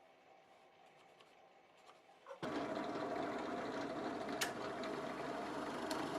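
An electric power tool switches on about two and a half seconds in and runs at a steady speed, with a couple of faint clicks over its hum.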